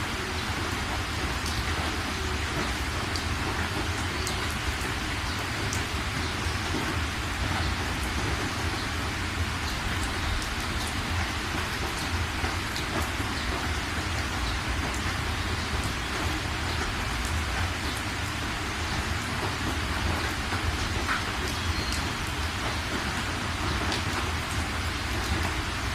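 Steady rain falling, with scattered ticks of individual drops and a steady low rumble underneath.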